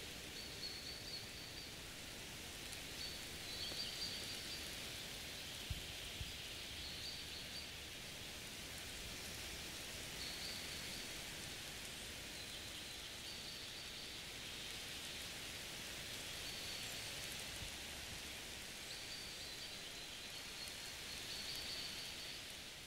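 Forest ambience: a steady high hiss, like rain on leaves, with short high-pitched chirps every one to three seconds.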